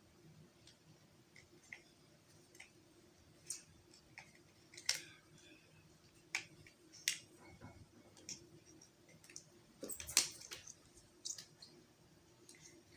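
Irregular sharp plastic clicks and taps as the wings are handled and pushed onto a Hasbro 12-inch Vulture action figure, with a cluster of louder clicks about ten seconds in.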